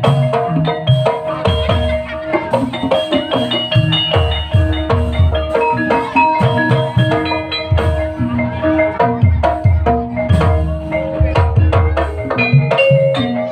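Javanese gamelan music for an ebeg horse-trance dance: tuned mallet instruments strike quick runs of short notes over repeated low drum strokes.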